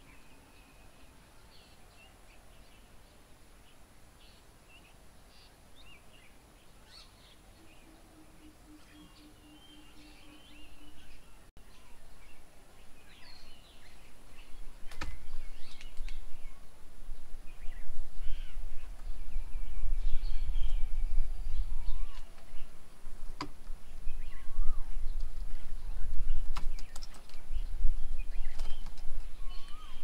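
Several birds calling in short, scattered calls throughout. From about halfway in, a loud, uneven low rumble comes in and becomes the loudest sound.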